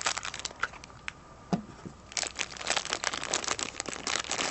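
Crinkly blue blind bags from a toy pet carrier being handled and squeezed in the hands: scattered crinkles and small clicks, sparse at first and denser from about two seconds in.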